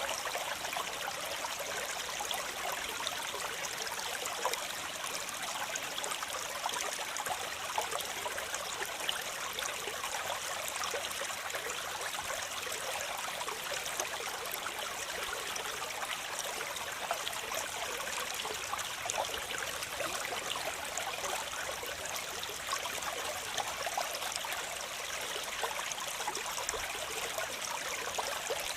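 Waterfall splashing steadily: an even rush of falling water full of fine splashes, with little deep rumble.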